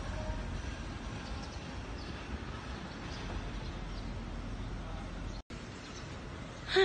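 Steady low outdoor background rumble with no clear single source, cutting out for an instant about five and a half seconds in.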